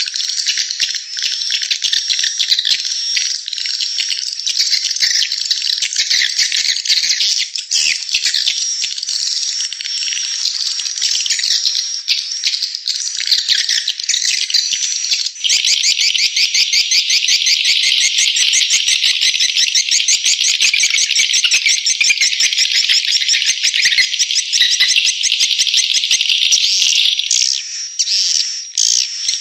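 Recorded swiftlet calls: a loud, dense, continuous chirping twitter. About halfway through it changes to a fast, even chatter of rapid repeated chirps, which breaks up near the end. It is a swiftlet 'calling sound' track of the kind played in swiftlet nesting houses to lure the birds in.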